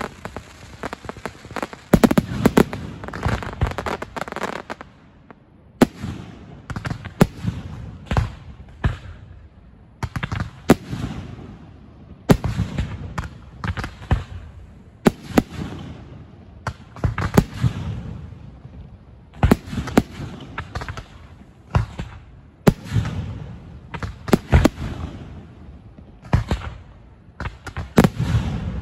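Fireworks finale barrage: sharp bangs bursting in rapid, irregular succession over a continuous low rumble of booms, with a brief lull about five seconds in.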